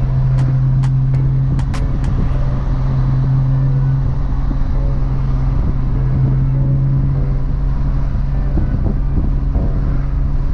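Nissan GT-R R35's twin-turbo 4.1-litre VR38 V6 and its tyres at a steady cruise: an even low drone with no revving or gear changes.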